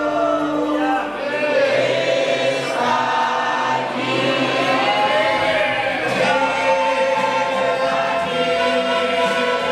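Large mixed choir of men and women singing a Spanish-language worship hymn in unison, with acoustic guitars accompanying.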